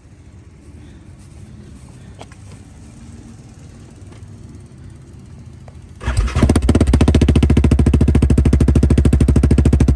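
Yamaha Grizzly 700 ATV's single-cylinder engine through a Big Gun aftermarket exhaust: a low idle, then about six seconds in the throttle is opened and a loud, rapid, evenly pulsing exhaust note is held steady.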